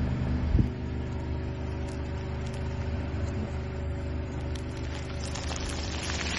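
A car engine runs steadily at low speed while the car creeps forward, with a sharp thump about half a second in. Near the end, a crackle builds as the tyre rolls onto a plastic bag packed with small hard pieces and starts to crush it.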